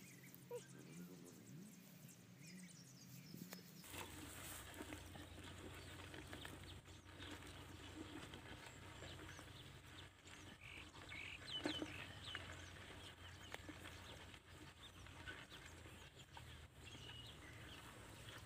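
Faint scraping and crumbling of dry soil as bare hands dig out a rice-field crab burrow, with a few faint animal calls in the background.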